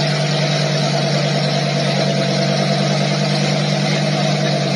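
Lamborghini Huracán's V10 idling steadily, heard close to its rear exhaust outlets.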